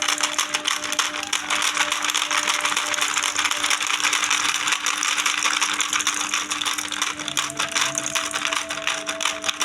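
Battery-powered toy fishing game running: a dense, continuous clatter of small plastic pieces over a steady hum.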